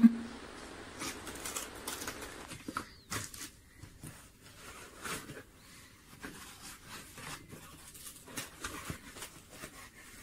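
Packing foam sheets and cardboard rustling and crinkling as they are handled and pulled aside, with many small irregular crackles and a sharp knock at the very start.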